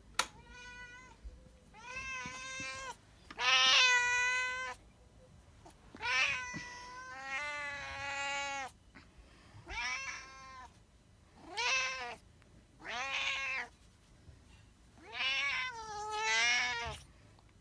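Domestic cat meowing over and over: about ten separate meows, some short and some long and drawn out, rising and falling in pitch. A sharp click comes right at the start.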